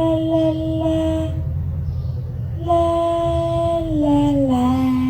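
A high voice singing two long held notes, the second sliding down in pitch, over a steady low rumble.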